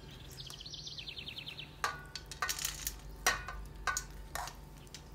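Metal spoon clinking and scraping against steel pans as ground-meat stuffing is spooned from one pan into another, with a handful of sharp separate clinks in the second half. Near the start there is a brief rapid series of high ticks.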